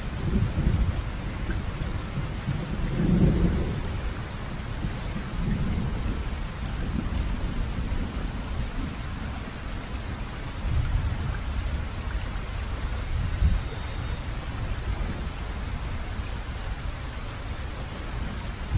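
Steady rain falling, with low rumbles of thunder that swell and fade a few times.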